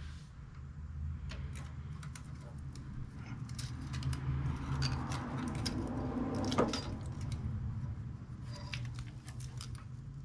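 Scattered clinks and clicks of metal hand tools being handled, over a steady low hum. There is one sharper knock about two-thirds of the way through.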